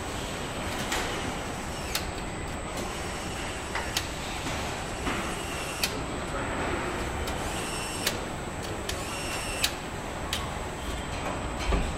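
Car assembly-line shop-floor noise: a steady machinery hum with a thin high whine, broken by sharp metallic clicks and knocks at uneven intervals and a few short high tones.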